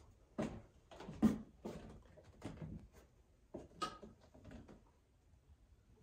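A framed painting knocking and scuffing against the wall as it is nudged straight by hand: a string of irregular light knocks and scrapes, with a short break a little past halfway.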